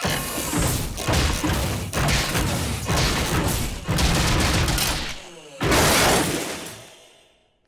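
Cartoon sound effects: a rumbling machine with the cockroaches' cackling laughter, then a loud crash at about six seconds that fades away.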